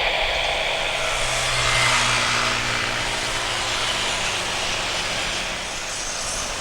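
Jet airliner engines making a steady rushing noise with a low hum, swelling about two seconds in and then easing slightly.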